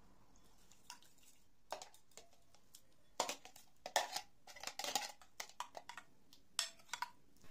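Metal spoon clinking and scraping against a glass bowl in irregular taps as yogurt with grated cucumber is stirred. The taps start about a second and a half in and come more often in the second half.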